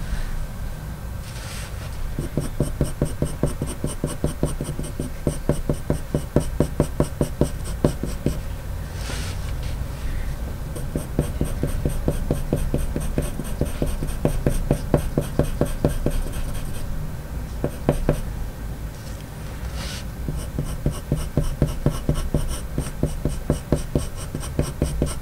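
Coloured pencil (Faber-Castell Polychromos) scratching across paper in runs of quick, short strokes as fur lines are flicked in with firm pressure, with a few brief pauses between runs.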